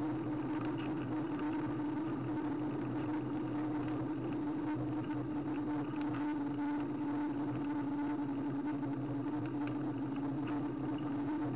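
Steady, slightly wavering hum with road noise from a bicycle rolling along an asphalt street, picked up by a camera mounted low on the bike.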